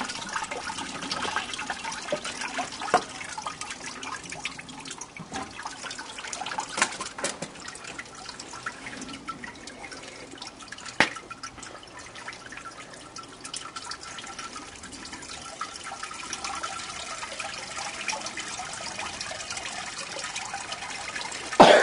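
New Petite Sirah wine trickling and dripping out of a cider press into a bucket as the fermented grapes are gently pressed, with scattered clicks and a sharper knock just past halfway.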